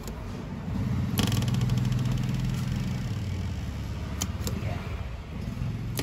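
A motor vehicle's engine running nearby, swelling about a second in and then slowly fading; it is the loudest sound. About four seconds in come two sharp clicks a fraction of a second apart, from a Leeb hardness tester's D-type impact probe being cocked and fired against a steel calibration block.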